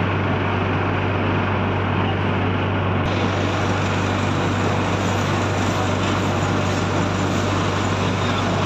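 Boat engine running steadily at a constant speed, a loud even drone with a steady low hum.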